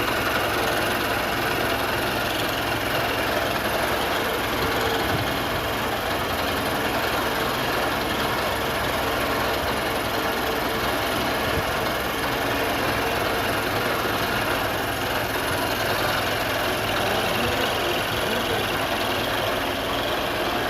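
Steady, unbroken running noise of metalworking machinery, with a faint steady hum.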